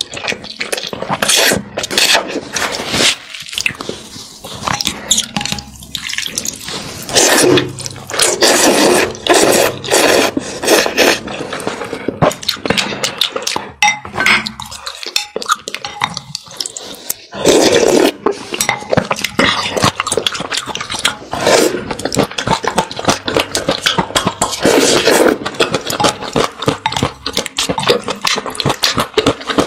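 Close-miked slurping and chewing of noodles in spicy broth: repeated wet slurps and mouth sounds with many small sharp clicks. There is a quieter lull of a few seconds around the middle.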